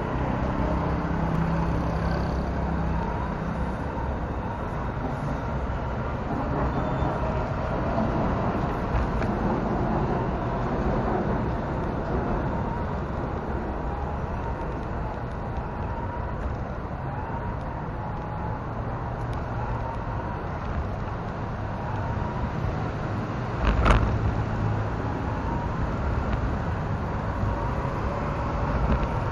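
On-board sound of a Tamiya radio-controlled Toyota Land Cruiser 40: its electric motor and gears whine, rising and falling in pitch as the throttle changes, over the rumble of the tyres on the paving and the noise of street traffic. A sharp knock comes about 24 seconds in, as the car hits a bump or edge.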